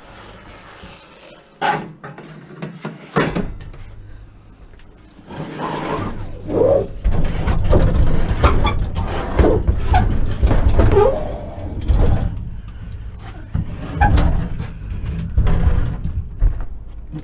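A refrigerator being rocked and shoved over metal floor brackets: irregular scraping and knocking of metal, heavier and busier from about five seconds in.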